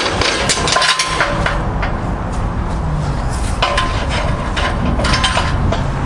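Irregular metal clanks and knocks of forcible-entry hand tools striking and working a padlock, a few with a brief ringing note, over the steady low noise of an engine running.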